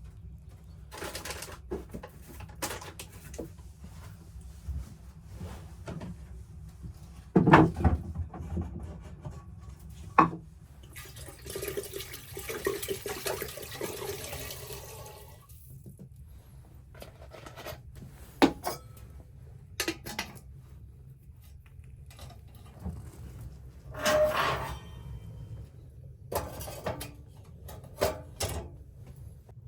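Scattered knocks and clatter of objects being handled, with the loudest thumps about seven and ten seconds in, and a steady rushing noise for about four seconds in the middle.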